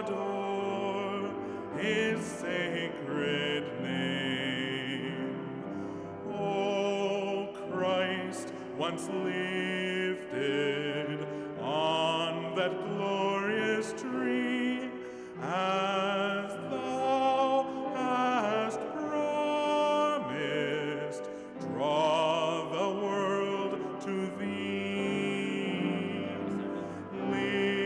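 Church organ music: sustained chords under a melody with strong vibrato.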